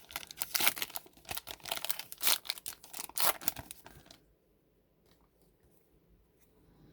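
A trading card pack's wrapper being torn open and crinkled by hand, a rapid crackling tear that stops about four seconds in, followed by a few faint clicks.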